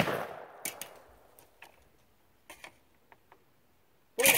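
.410 shotgun shot at the start, its report ringing out over about a second, followed by several light mechanical clicks. A loud rush of noise starts near the end.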